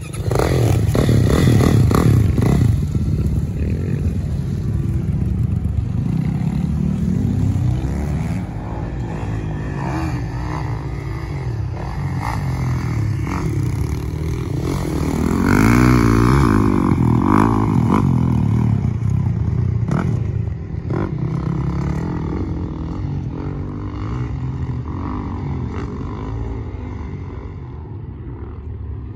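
Dirt bike engines running and revving as the bikes ride, engine pitch rising and falling with the throttle; loudest about two seconds in and again around sixteen seconds.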